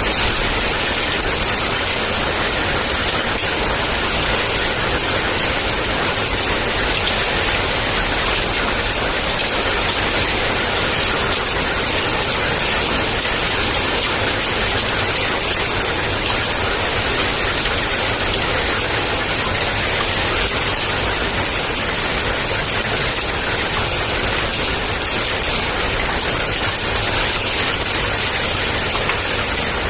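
Heavy rain falling in a steady downpour, an even hiss with no thunder breaking through.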